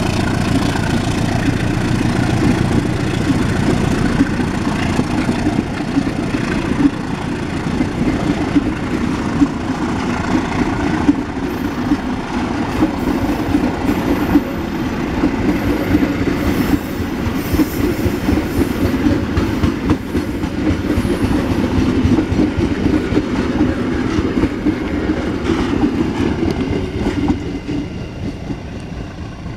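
CC 201 diesel-electric locomotive's engine running hard as the train pulls away, then the train rolling past with wheels clattering over the rail joints. The sound drops away near the end.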